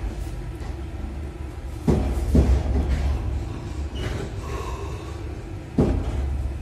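Passenger train carriage rolling with a steady low rumble. Sharp knocks come about two seconds in, again half a second later, and once more near the end.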